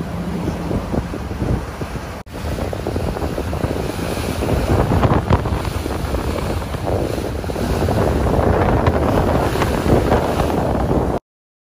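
Wind buffeting the microphone on the open deck of a moving ferry, over the rumble of the boat and the rush of the sea. The sound breaks off for a moment about two seconds in and stops abruptly just before the end.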